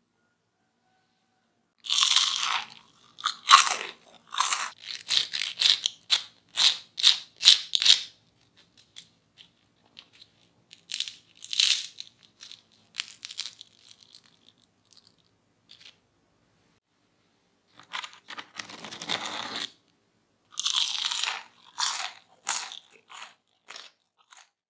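Crisp deep-fried potato churros crunching as they are bitten into and broken apart by hand, in bursts of quick crackles with pauses between.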